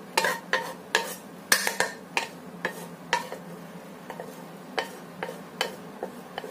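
Cooking utensil clinking and scraping against a pan while a stir-fry is stirred and dished up: a string of sharp, irregular clicks, strongest in the first three seconds and lighter after.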